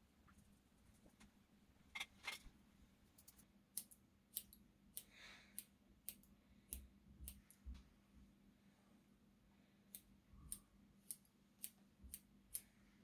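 Scissors snipping through hair: a series of short, sharp snips at irregular intervals, some in quick pairs, over a faint steady hum.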